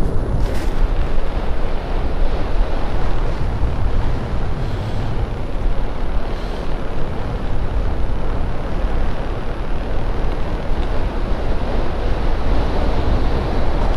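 Wind buffeting the microphone: a loud, steady rushing rumble from riding an electric unicycle at speed on a gravel road. One sharp click about half a second in.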